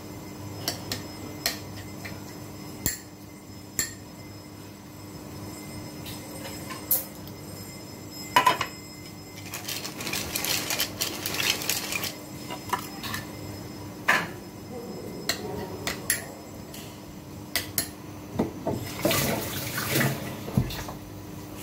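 Kitchen handling sounds: scattered clinks and knocks of a spoon and ceramic bowl on a cutting board, with a hand pepper grinder being twisted for a couple of seconds around the middle. Near the end comes a short rush of noise like running water at the sink, all over a steady low hum.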